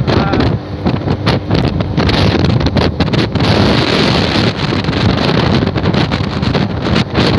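Wind buffeting a phone's microphone on a moving motorcycle at road speed: a loud, uneven rush with irregular gusts.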